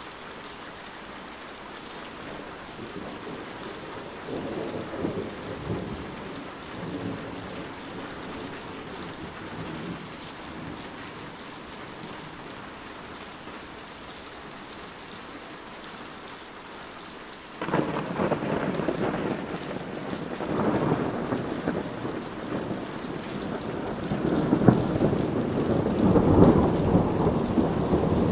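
Heavy rain falling steadily, with thunder: soft distant rumbles in the first half, then a sudden loud clap about two-thirds of the way through, followed by heavy rolling thunder that grows louder toward the end.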